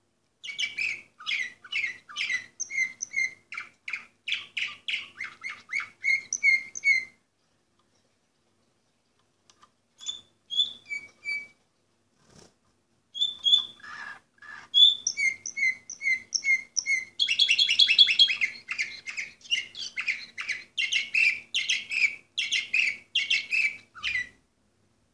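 Orpheus canary singing: two long song phrases of fast repeated notes and trills, separated by a pause of a few seconds with only a few short notes.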